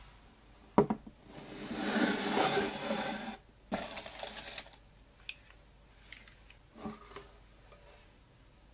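A wooden sliding-lid box being opened by hand. A knock comes first, then the wooden lid slides out with a long scrape lasting about two seconds. A second knock follows, along with light rustling of the wood-wool packing as the pen inside is handled, and a few small ticks and taps later on.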